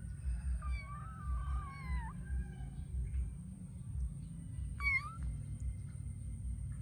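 Kitten meowing twice: one long, wavering meow about half a second in, then a short one near five seconds, over a steady low rumble.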